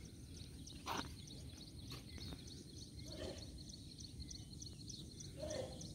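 Outdoor ambience: a steady low rumble with a faint, high chirp repeating evenly about three times a second.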